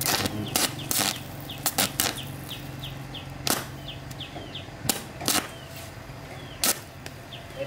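Irregular sharp knocks and taps, about a dozen, from hand work on a rice threshing machine, over a low steady hum, with faint short high chirps throughout.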